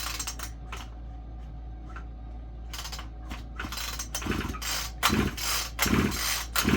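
Recoil starter of a small two-stroke chainsaw pulled over and over, turning the engine against compression without it firing. A few light clicks come first, then about halfway through a steady run of pulls, roughly one every 0.8 seconds. The owner finds the recoil's feel oddly funky.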